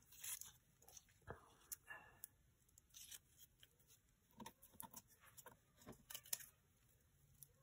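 Faint handling of old book-page paper scraps: scattered soft rustles, crackles and light taps, with some tearing of paper.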